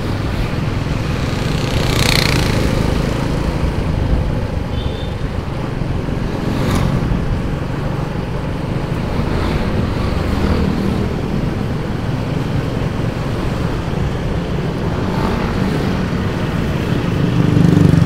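Riding a motorcycle in dense city traffic: a steady rush of engine and road noise from the bike and the many motorbikes and cars around it, swelling louder near the end.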